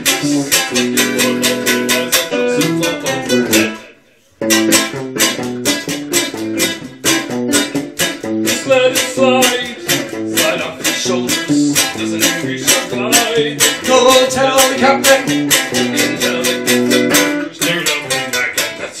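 Strummed acoustic string instruments playing a song in a quick, even strumming rhythm. The playing stops for a moment about four seconds in, then picks up again.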